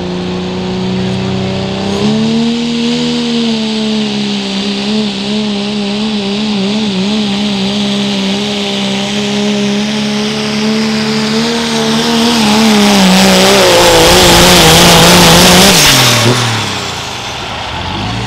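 Diesel pickup truck under full throttle pulling a sled: the engine holds a steady note that wavers in pitch. About thirteen seconds in, a loud rushing roar builds. Around sixteen seconds the engine note drops away as the pull ends.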